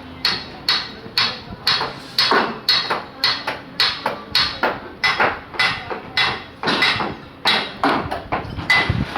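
Hammer striking repeatedly in a steady rhythm of about three blows a second, each blow ringing briefly, as in the hammering of roof formwork or rebar work.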